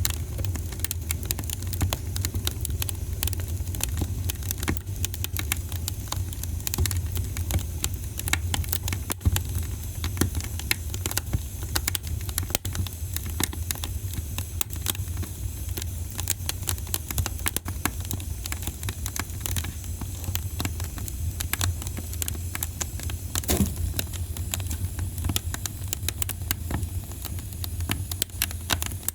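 Fireplace fire crackling, with many irregular sharp pops and snaps over a steady low hum of the burning fire.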